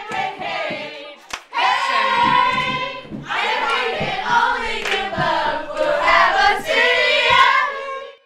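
A group of young voices singing and chanting together in long held notes, with a few hand claps; a sharp clap about a second in.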